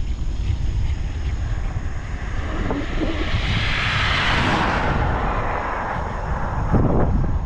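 A car passing on the highway, its tyre and engine noise swelling to a peak about four and a half seconds in and then fading. Steady wind rumble on the microphone of a moving bicycle runs underneath.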